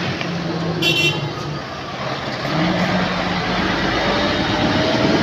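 Heavy truck diesel engines running as an aerial-platform fire truck and other traffic drive past close by, growing louder about two and a half seconds in. There is a brief high-pitched beep about a second in.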